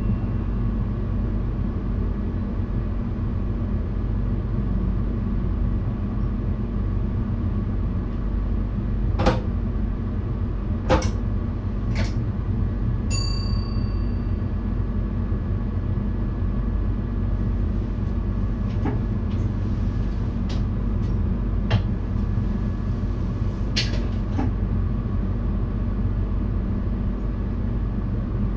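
VIRM double-deck electric train running, heard from inside the driver's cab as a steady low rumble. A few sharp clicks and knocks come through it, and a brief chime rings once about thirteen seconds in.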